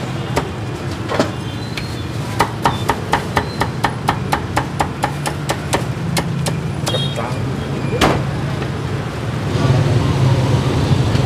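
Cleaver chopping roast pork with crackling skin on a thick round wooden chopping block: a quick even run of sharp knocks, about five a second, then a single harder chop near the end, over a steady low hum.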